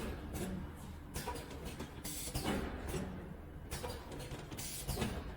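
Screw-fed high-speed powder packaging machine running, its mechanism cycling with a steady run of repeated short, noisy strokes.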